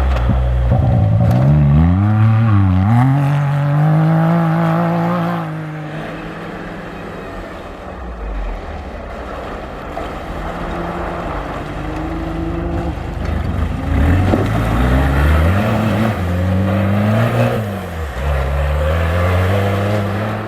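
Rally-raid competition vehicle engines revving hard under acceleration, the pitch climbing and dropping with each gear change. One loud run fills the first five seconds, then the engine note drops back, and another strong run of rising and falling revs comes near the end.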